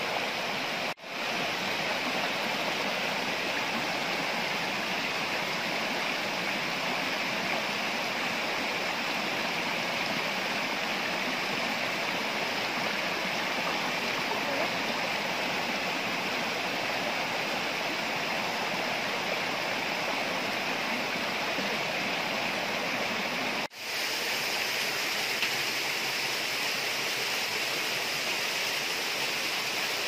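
Steady rush of water from a small rocky stream tumbling over stones in little cascades, broken twice by a momentary dropout.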